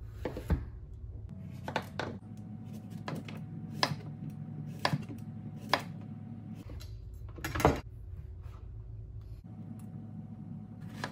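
Chef's knife slicing zucchini and yellow squash on a plastic cutting board: a sharp knock each time the blade hits the board, irregularly about once a second, with one louder knock about two-thirds of the way through.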